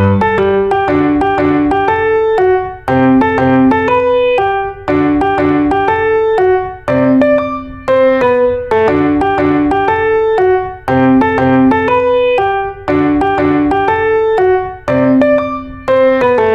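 Background piano music: a light melody of struck notes, repeating in phrases about two seconds long.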